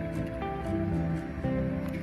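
Background music: a gentle melody of plucked guitar notes.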